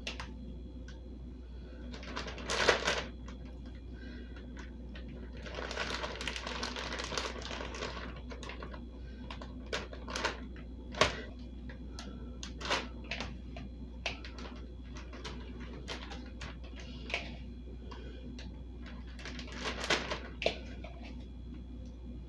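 Plastic zip-top freezer bags crinkling and rustling as handfuls of seasoned sliced beef are put into them, with scattered sharp crackles and one longer stretch of rustling.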